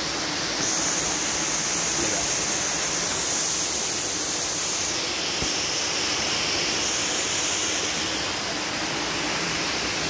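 Waterfall cascading down a granite rock face, a steady rush of falling water heard close.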